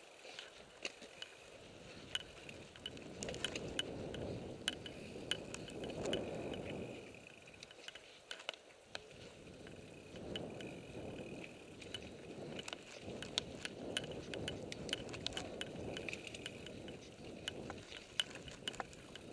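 Mountain bike riding down a dirt singletrack: tyres rumbling over the trail, with a steady freehub ticking and frequent sharp clicks and rattles from the chain and frame over bumps. The rumble eases briefly about eight seconds in, then picks up again.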